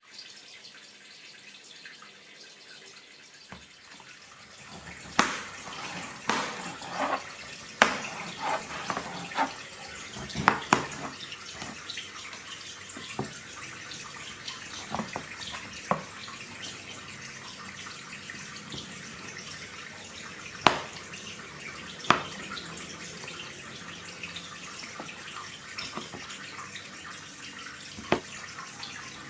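Water running steadily from a tap into a sink, with scattered knocks and clinks of things handled under it, thickest in the first half.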